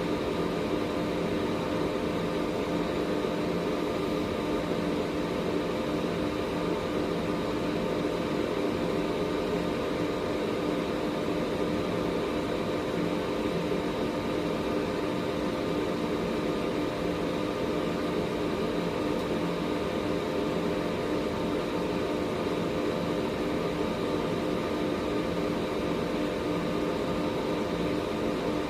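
Air purifier running steadily: a constant fan whoosh with a hum of several fixed, unchanging tones.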